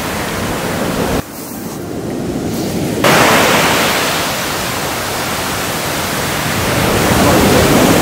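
Surf washing up over a black sand beach: a loud, steady rushing hiss, broken by abrupt cuts about a second in and again about three seconds in.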